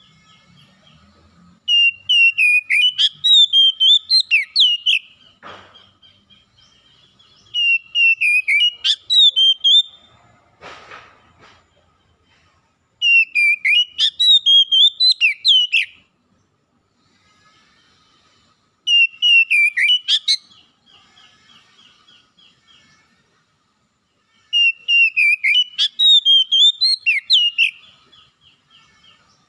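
Oriental magpie-robin singing in five loud bursts of rapid, warbling whistled phrases, each two to three seconds long, with pauses between them. A brief rustle comes twice in the pauses.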